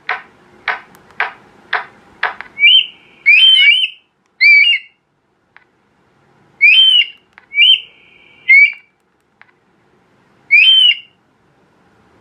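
Electronic game caller playing recorded bird calls through its horn speaker. It starts with five short, harsh calls, about two a second, then switches to loud whistled calls, some short and some drawn out, coming in spaced groups.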